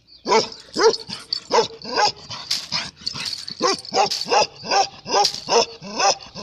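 Male Ladakhi livestock guardian dog barking in a steady run, about two to three barks a second.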